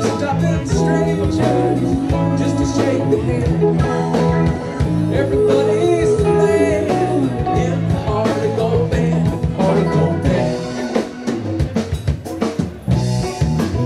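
Live band playing amplified rock music: electric guitars over a drum kit, with a steady beat.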